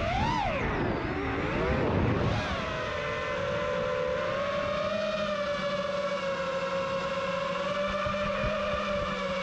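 Electric motors and propellers of a 5-inch FPV racing quad (Hypetrain Blaster 2207 motors) whining, the pitch swooping up and down for the first few seconds as the throttle changes. From about three seconds in the whine holds steady as the quad sits idling on the grass.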